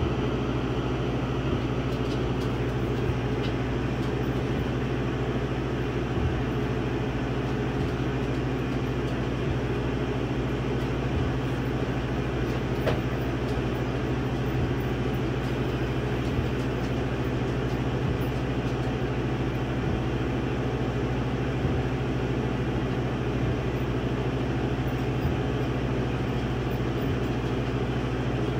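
Laser engraver running as it burns lettering into a wood board: a steady mechanical drone with faint ticks every second or two.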